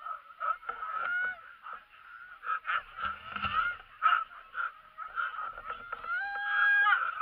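Harnessed sled dogs whining and yelping together in a chorus of high cries, the excited noise of a team impatient to run; a longer held whine stands out near the end.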